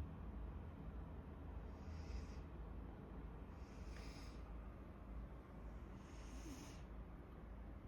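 Snoring: three slow, hissy breaths about two seconds apart.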